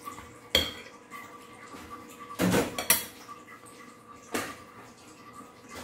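A metal spoon knocking and clinking against a glass dish of raw fish: four separate sharp knocks spread over a few seconds, the first ringing briefly, over a faint steady hum.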